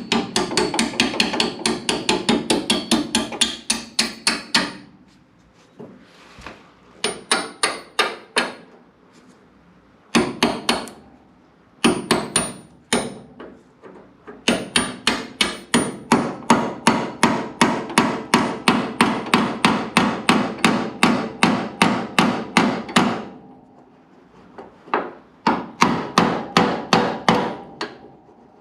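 Runs of rapid hammer blows on metal, about four or five a second with short pauses between runs, most likely driving a new hinge pin through fresh bushings in a Chevy C10 door hinge.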